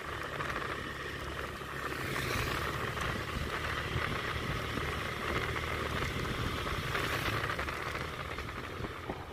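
Motorbike engine running at a steady cruising speed while being ridden, with a steady hum and wind and road noise.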